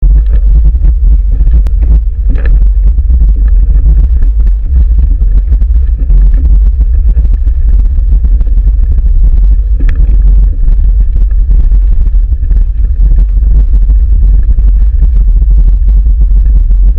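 Loud, steady low rumble of wind buffeting the microphone of a camera mounted on a racing handcycle as it rides at speed, with the noise of the cycle rolling over the track mixed in.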